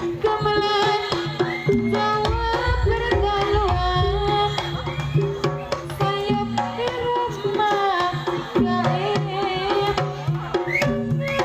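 Jaranan gamelan music: kendang hand drums play a busy rhythm under repeating low metallophone notes and a bending melodic line.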